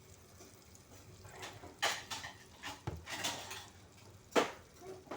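Kitchen utensils knocking and clinking against a pan: a few separate strikes, one dull and low, the sharpest about four seconds in.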